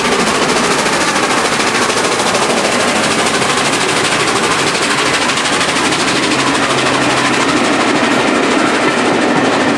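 Peppercorn A1 Pacific steam locomotive 60163 Tornado passing at speed, its three-cylinder exhaust beating rapidly and evenly. Near the end its coaches roll past behind it.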